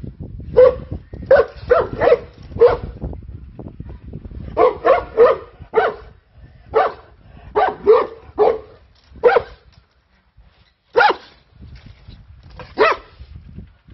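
Anatolian shepherd dog barking: about seventeen deep, short barks in quick clusters of four to six, followed by two single barks near the end.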